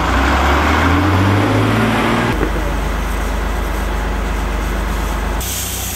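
Iveco fire engine's diesel engine running close by. About two seconds in the sound cuts suddenly to a steadier low drone with hiss.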